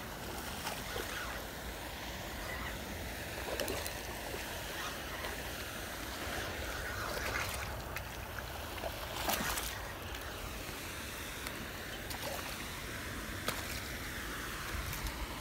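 Steady open-air hiss and low rumble, with a few brief splashes and knocks at the water's edge, the clearest about nine seconds in.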